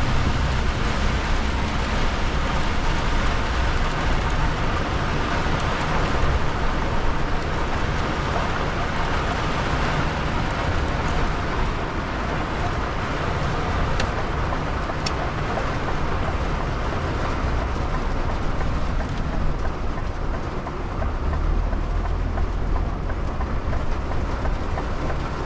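Inside a truck cab in heavy rain: a steady hiss of rain on the windshield and roof with the wipers running, over the low rumble of the truck's engine and tyres on a wet road.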